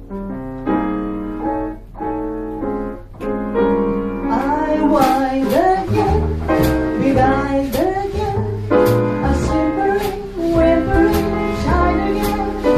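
Live jazz quartet: female vocal with grand piano, upright bass and drum kit. Piano chords play alone at first. About four seconds in, the voice and the drummer's cymbals come in, and the bass joins soon after.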